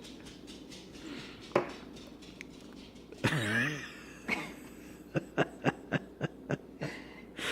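Mouth sounds of someone drinking with hiccups: a single sharp hic about one and a half seconds in, a brief wavering whine a little after three seconds, and a run of about seven quick wet smacks, roughly three or four a second, from about five seconds in.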